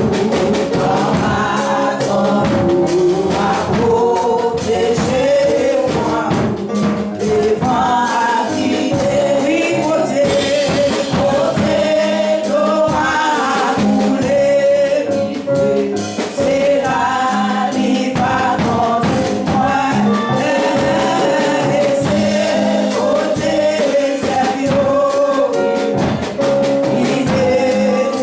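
Gospel singing by a choir or congregation, with instruments keeping a steady beat.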